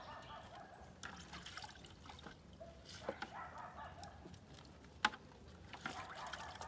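Water dripping and splashing in a plastic bucket as scallions are rinsed and stripped by hand, with scattered light ticks and one sharp tap about five seconds in.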